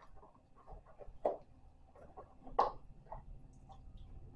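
Small kitchen containers such as spice jars being handled and set down on a table: a few light knocks and clicks, the loudest a little past halfway.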